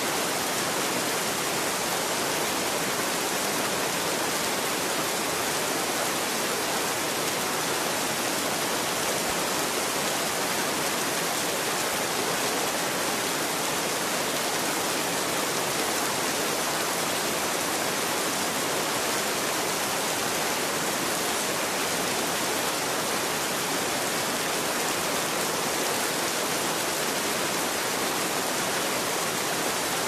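Heavy downpour of rain, a steady, even hiss that does not change.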